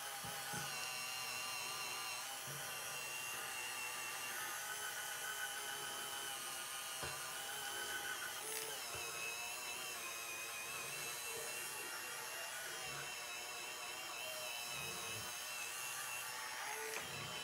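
Electric rotating facial cleansing brush running on its highest setting while pressed against the face. It makes a steady high-pitched whir whose pitch shifts slightly now and then.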